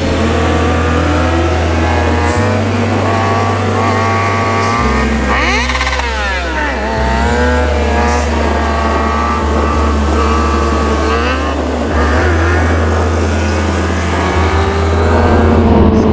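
Motorcycle engines revving and running during wheelies, over a music track with a deep bass line that steps between held notes every couple of seconds.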